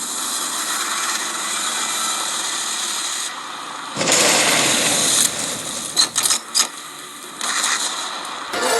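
Cartoon action sound effects: a steady rushing hiss, then a louder rushing rumble about four seconds in, a few sharp clicks or knocks around six seconds, and more rushing near the end.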